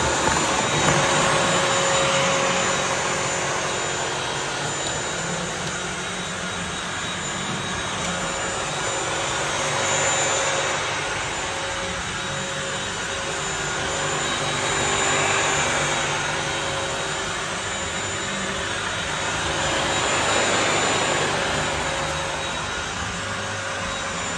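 Bissell CrossWave corded wet-dry vacuum mop running on its hard-floor setting, its motor giving a steady whine. The loudness swells and eases about every five seconds.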